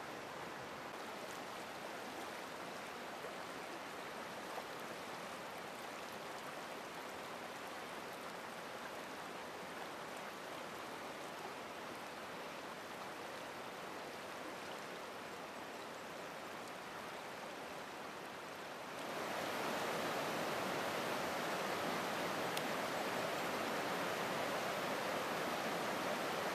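A shallow river running over stones and boulders, a steady rush of water that becomes louder about three-quarters of the way through.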